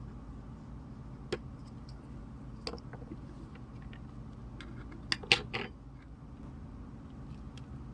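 A few light clicks and taps of small tools and a flux syringe being handled on a workbench, the loudest a quick cluster of three about five seconds in, over a steady low hum.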